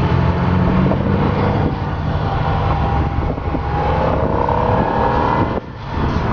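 Motorcycle engine running at riding speed, with a steady low rumble and wind noise on the microphone. The engine whine rises in pitch as it speeds up, from about four seconds in, then drops briefly near the end.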